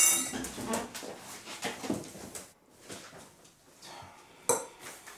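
Forks and knives clicking and scraping on plates during a meal, with a loud ringing clink of metal on glass or china at the start and another sharp clink about four and a half seconds in.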